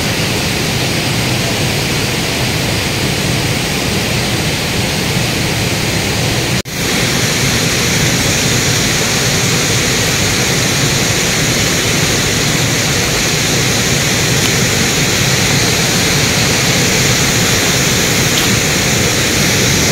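Rushing water of a shallow rocky river and small cascade, a loud steady noise. It cuts out for a moment about six and a half seconds in.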